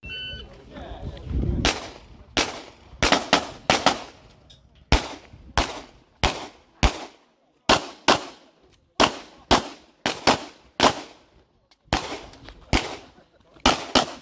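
A short electronic beep at the very start, the shot timer's start signal, then a string of about twenty 9 mm Glock 34 pistol shots, fired in quick pairs and singles, each with a short ringing echo.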